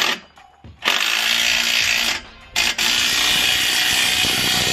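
Cordless driver tightening the bolt of an exhaust pipe band clamp, running in two bursts of a second or two each with a short pause between.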